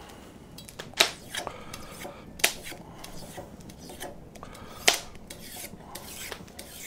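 Kitchen utensils being handled: scraping and rubbing with small clinks, and three sharp knocks, about a second, two and a half seconds and five seconds in.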